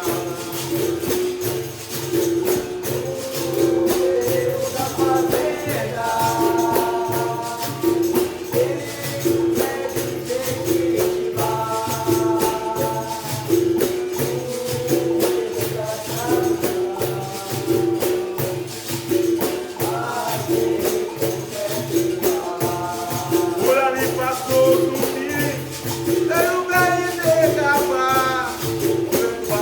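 Capoeira music played live in the benguela rhythm: a berimbau's repeating pitched pulse over a pandeiro's jingles and a low hand drum, with a sung call and chorus coming in a few times.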